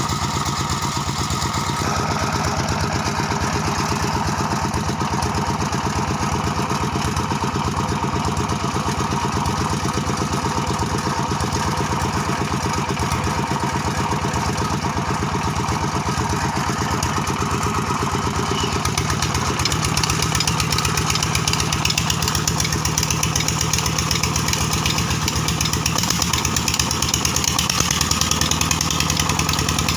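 Petter-type single-cylinder diesel engine running steadily at a constant speed, driving a tubewell pump. About two-thirds of the way in, a rushing hiss of water joins it as the pump starts to discharge from the outlet pipe.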